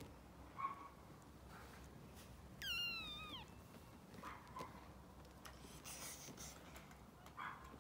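A young kitten mewing: one short high-pitched mew that falls in pitch about three seconds in, with a few fainter short squeaks before and after it.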